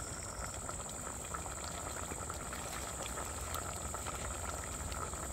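Prawn curry simmering in an open clay pot over a wood fire, with a steady bubbling of many small pops.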